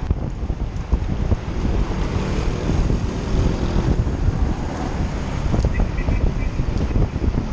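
Wind buffeting the microphone as a mountain bike is ridden fast in a pack, a loud, steady low rushing that flutters.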